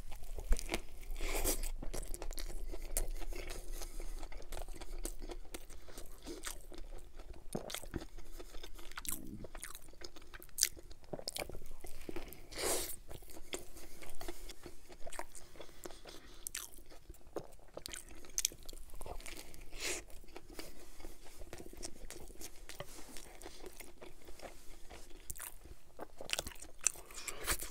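A man chewing a mouthful of burger, close to the microphone, with many short crunchy clicks and wet mouth sounds as he chews.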